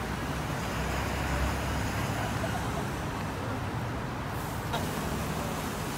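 Road traffic passing close by, a bus among it: a steady low engine rumble that is strongest in the first couple of seconds.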